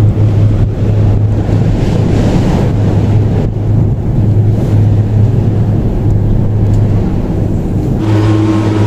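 Steady loud rumble and wind noise inside a moving Ngong Ping 360 cable car cabin travelling along its cable. Near the end the sound changes and a steady hum of several tones joins in.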